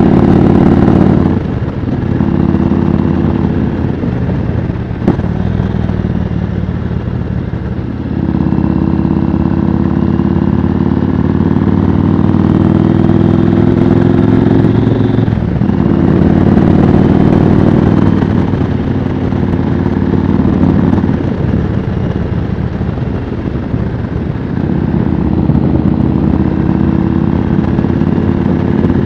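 Yamaha Road Star V-twin cruiser motorcycle running at road speed with wind noise. The engine note drops away about a second and a half in as the throttle eases, then pulls steadily again from about eight seconds in, with a couple of shorter dips later. A single sharp click is heard about five seconds in.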